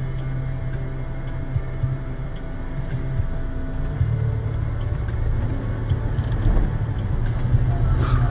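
Car engine and road noise heard from inside a moving car: a steady low drone that grows a little louder over the second half, with a few light ticks and no impact.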